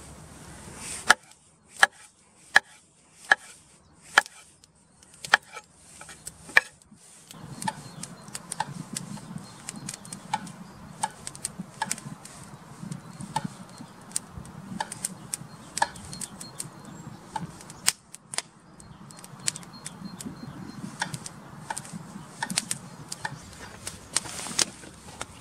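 Kitchen knife slicing button mushrooms on a wooden cutting board: a regular series of sharp knocks as the blade meets the board, about one and a half a second. About seven seconds in, a low steady rushing noise joins under the knocks.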